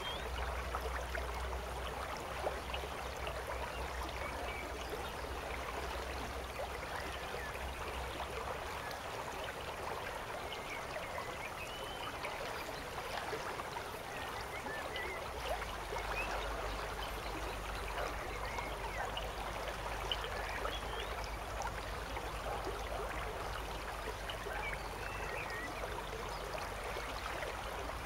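Steady rushing of a river's flowing water, an even wash of sound that does not change.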